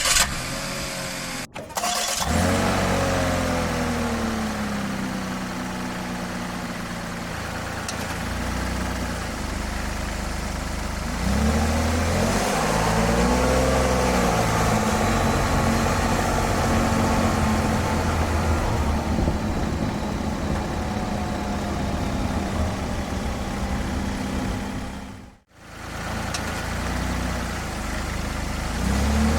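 Daihatsu Atrai RS's small three-cylinder turbo engine starting, then running as the van moves off, its pitch rising and falling with revs. The sound breaks off briefly about two seconds in and again near the end.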